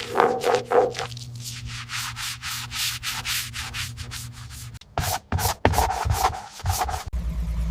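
Rhythmic sanding or rubbing strokes on a car body, several strokes a second. Near the end the strokes turn louder and heavier, with a low rumble under them.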